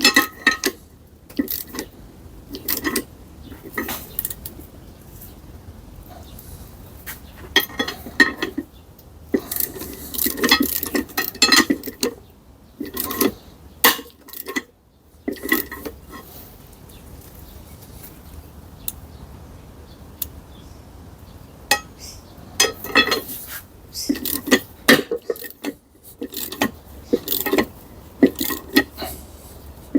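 Steel gearbox parts and hand tools clinking and clattering as they are handled, in bursts of sharp metallic clicks with short pauses between.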